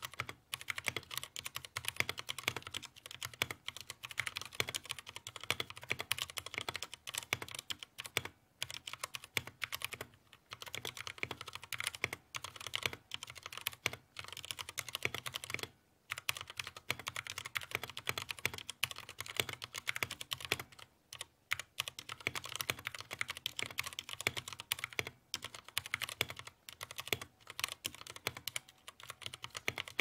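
Fast typing on a GK61 60% mechanical keyboard with Kailh Brown tactile switches and PBT keycaps: a dense, continuous run of keystroke clacks with a few brief pauses, stopping at the end.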